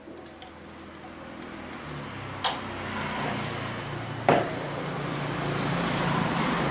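Mitsubishi electric sewing machine running, its motor hum growing steadily louder, with two sharp clicks about two and a half seconds in and again about four seconds in.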